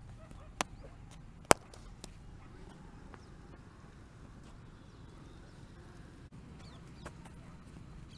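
Two sharp knocks, about half a second and a second and a half in, the second much the louder, over a steady low rumble, with a couple of faint ticks later on.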